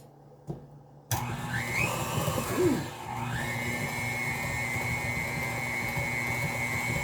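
Electric mixer switched on about a second in, spinning up with a rising whine, then running steadily through cake batter after about three seconds.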